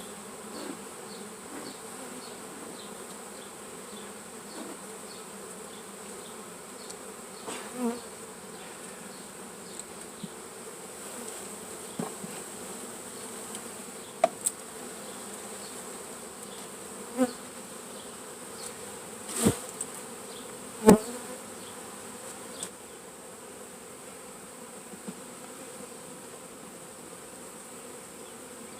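Honeybees from a package being installed into a hive, buzzing steadily as a mass, with a few short sharp knocks scattered through, the loudest about two-thirds of the way in.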